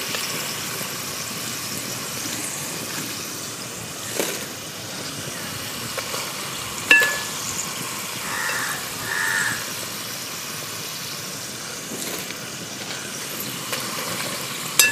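Par-boiled potato fingers deep-frying in hot oil, a steady sizzle, with a couple of sharp metallic clinks as a spoon scoops them out of the pan.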